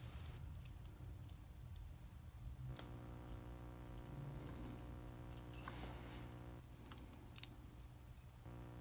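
Faint, scattered small metal clicks and handling noise of a padlock and its key being worked in the hands.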